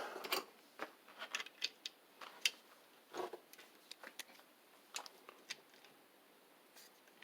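Faint, scattered clicks and light taps of small metal engine parts and tools being handled, a few a second at most, with a slightly louder knock about three seconds in.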